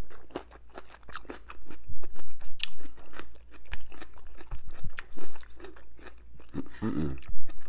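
A person chewing crunchy food close to the microphone: a long run of small, irregular crunches and mouth clicks.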